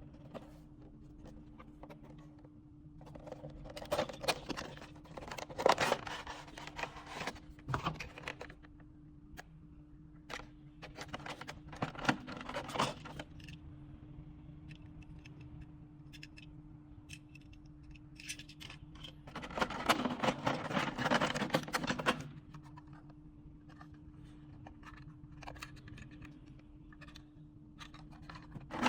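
Packaging of small die-cast model cars being handled and opened: bursts of scraping and rustling, three times, over a faint steady hum.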